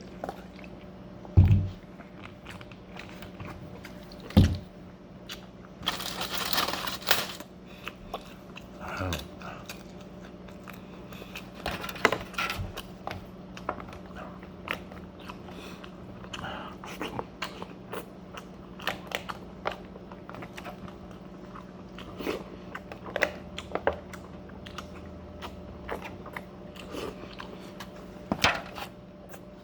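Close-up chewing and crunching of food, with wet mouth clicks and a few louder crunchy bites. There are two heavy thumps within the first five seconds, and a steady low hum underneath.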